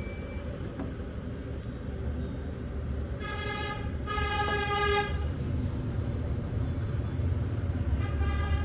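Steady low traffic rumble, with a vehicle horn honking twice about three seconds in and once more near the end.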